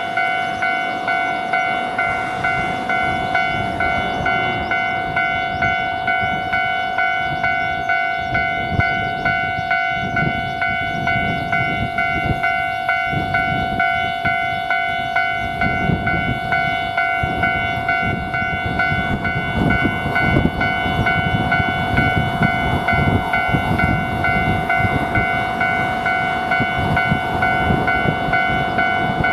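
Japanese railroad crossing bell ringing its rapid, steady kan-kan throughout. A train passes over the crossing, its rumble building from about eight seconds in and loudest from about fifteen to twenty-five seconds.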